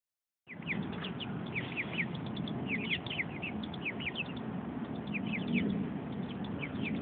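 Birds chirping: many short, high chirps, each a quick falling note, coming several a second and overlapping, over a steady low background rumble. The sound starts about half a second in.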